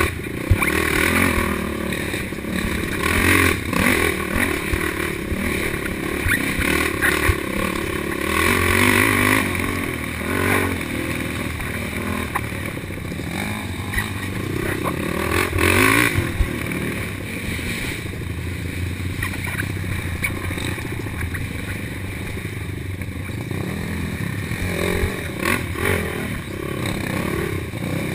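Quad (ATV) engine revving hard and easing off in surges as it is ridden fast over a rough dirt trail, heard close from on board the machine, with rattling and clattering from the quad over bumps.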